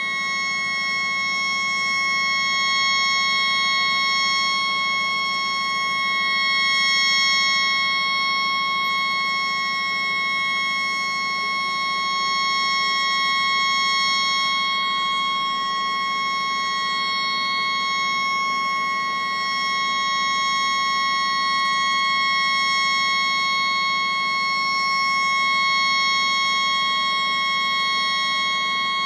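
A tugboat's malfunctioning horn, stuck on, sounding as one unbroken steady note with overtones. It is pitched up high by a fourfold speed-up.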